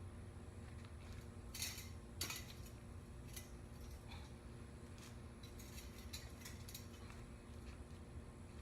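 Scattered metallic clicks and clinks of steel trampoline springs being hooked onto the jumping mat's rings, the two sharpest about a second and a half and two seconds in, then a quicker run of lighter clicks later on, over a low steady hum.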